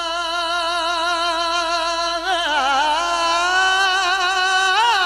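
A man's voice singing a Punjabi naat rubai unaccompanied, drawing out the line's words into a long wavering held note. About two seconds in he slides through a quick turn into a second long held note, with more ornaments near the end.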